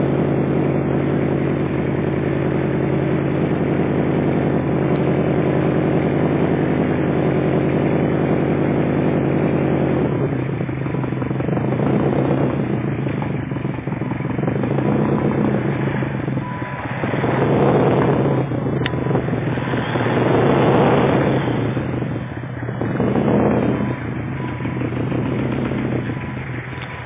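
Subaru Impreza STI's turbocharged flat-four engine idling steadily through the exhaust for about ten seconds, then revved repeatedly, each rev rising and falling back.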